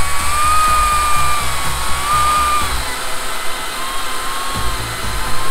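STIHL MSA 220 C battery chainsaw's electric motor running with a steady high whine as the chain cuts into a log of dried Australian hardwood. The pitch sags slightly under the load about two and a half seconds in, then holds.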